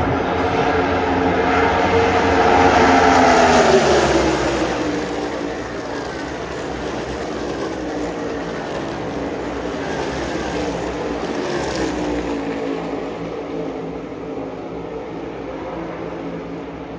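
NASCAR Cup Series stock cars' V8 engines passing. The engine note drops in pitch as the pack goes by, loudest about three to four seconds in. A second, quieter pass comes near twelve seconds, then the sound eases off.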